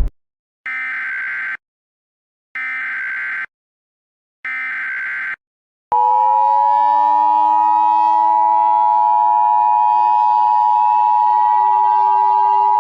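Emergency Alert System alert opening: three short bursts of SAME header data screech, then the steady two-tone EAS attention signal with a slowly rising siren wail under it.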